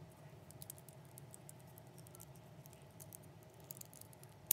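Faint, scattered clicking and tapping of clear plastic 3D crystal puzzle pieces being handled and pressed together, with one sharper click near the end. A piece is being pushed at a joint it won't go into, because it is held upside down.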